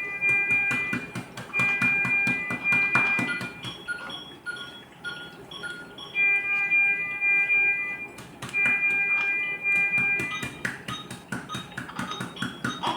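Background music with a steady beat and held electronic-sounding notes that change in pitch every second or two.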